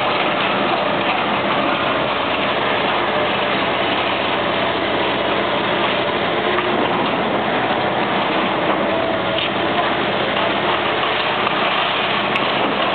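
Diesel engine of a Liebherr 974 long-reach demolition excavator running steadily while it works, under an even, continuous noisy rush with no distinct impacts.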